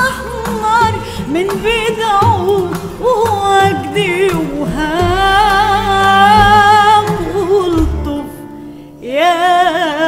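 Female soloist singing an ornamented Arabic vocal line with strong vibrato over the ensemble's accompaniment. Midway she holds one long wavering note that dies away near eight seconds, then a new phrase begins with a rising slide about a second later.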